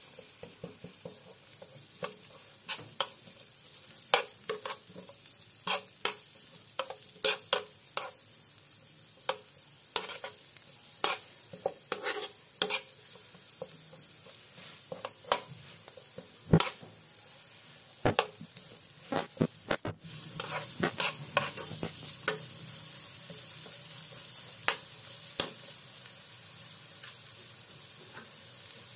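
Sliced onions sizzling as they sauté in hot oil in a frying pan, stirred by a utensil that clicks and taps against the pan at irregular intervals over a steady hiss.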